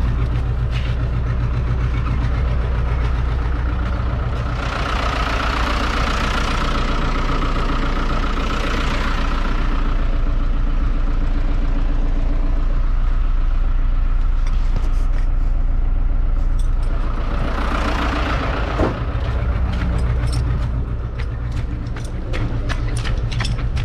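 Truck engine running steadily at idle, a constant low hum. A rushing noise rises over it about five seconds in and again near eighteen seconds in.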